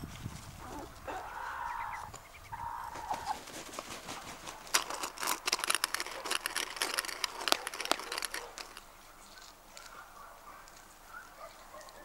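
Chickens clucking, then a few seconds of dense, sharp crackling clicks that are the loudest sound, followed by quieter clucks.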